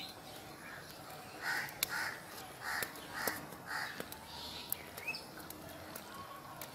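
A crow cawing about five times in quick succession, with a short chirp from another bird and a few light clicks.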